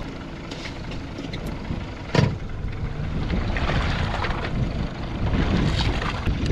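Wind rumbling on the microphone and water washing against a small fishing boat's hull, with one sharp knock about two seconds in.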